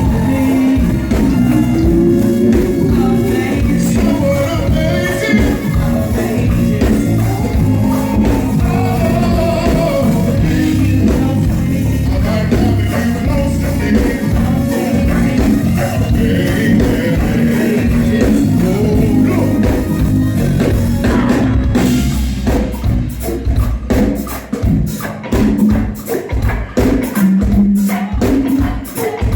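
Live go-go band music: singing over a drum kit and hand percussion. About three-quarters of the way through, the full band drops back to a sparser percussion-led groove of sharp, rhythmic hits.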